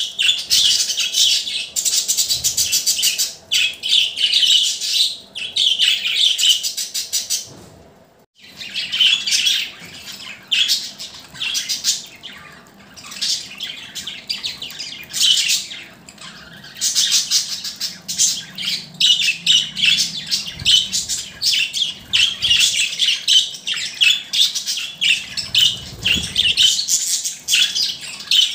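Budgerigar chatter: rapid, continuous chirping and singing, with a brief pause about eight seconds in.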